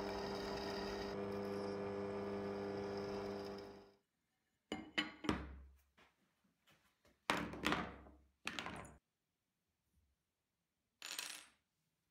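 Drill press motor running with a steady hum that cuts off about four seconds in. Then a handful of sharp metallic clinks and knocks, each ringing briefly, as aluminum stamp plates and small rotary-tool bits are set down on the bench.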